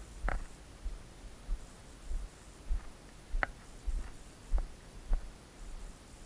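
Dull low thuds at a walking pace, typical of a player's footsteps jolting a body-worn camera, with a few sharp clicks in between, the clearest about three and a half seconds in.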